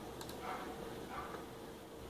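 Quiet room tone: a faint steady hum with a few faint soft sounds in the background.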